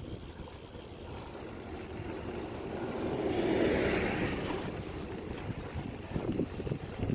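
A car passing on the road alongside, its sound swelling to a peak about halfway through and then fading. Underneath is the steady rumble of riding with wind on the microphone.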